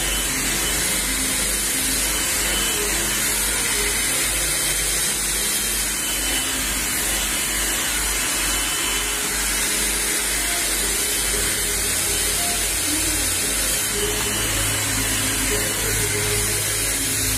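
Handheld hair dryer running steadily, a continuous rush of blown air.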